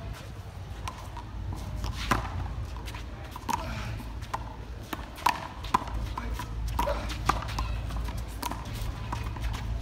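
Handball rally: a hard rubber handball smacks off a player's hand, the concrete wall and the court several times at irregular intervals, with sneaker footsteps between hits.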